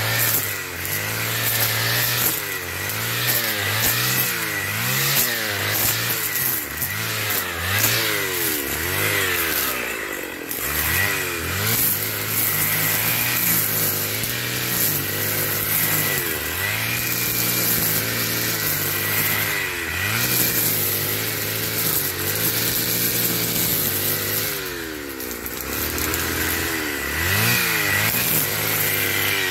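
Stihl FS550 brushcutter's two-stroke engine running at high revs while its square nylon line cuts dry grass and weeds. The engine pitch keeps dipping and climbing back every second or two with each sweep.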